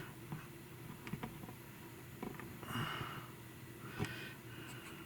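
Faint handling noise: a few light clicks and knocks, with a soft breath or sniff about three seconds in and a sharper click about a second later.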